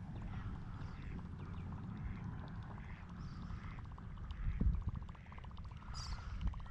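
Spinning or baitcasting fishing reel being cranked as a lure is retrieved, a fast even ticking that starts a little past the middle, over a steady low rumble. A single dull knock comes just before the reeling starts.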